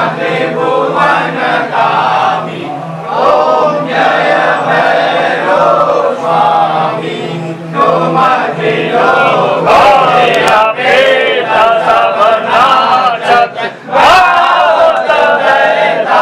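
A group of male voices chanting a Hindu devotional hymn together, with a steady low hum underneath.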